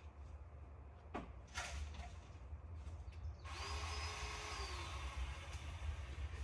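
Ryobi 18V ONE+ battery chainsaw's electric motor spinning up, running for under two seconds and winding down, about halfway through. Before it, two knocks about half a second apart.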